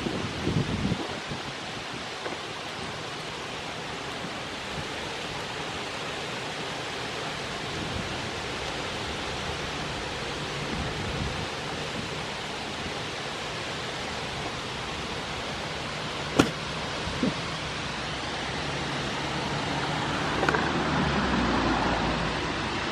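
Steady outdoor background hiss, with two sharp clicks about a second apart roughly three-quarters of the way through.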